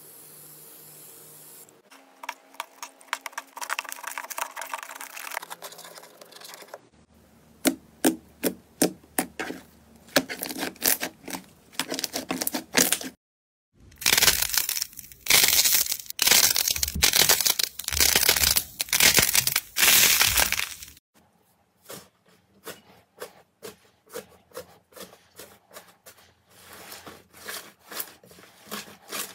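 Slime and clay being pressed, squeezed and kneaded by hand: runs of sticky clicks, pops and crackles, densest and loudest through the middle stretch.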